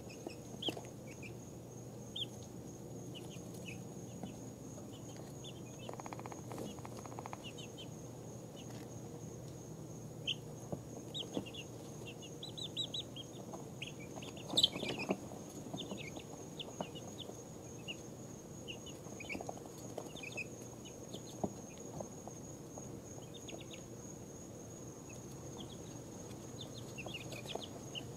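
Two-week-old mixed-breed chicks peeping in short, scattered chirps as they settle down to sleep, with a busier, louder run of peeps about halfway through. A steady faint high whine and a low hum run underneath.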